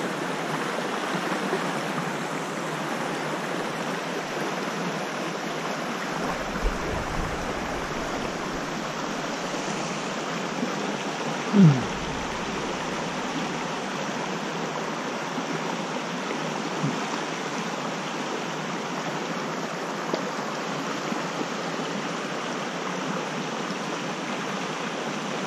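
Steady rushing of a creek flowing over a shallow rocky riffle. About halfway through, a brief, louder sound drops quickly in pitch.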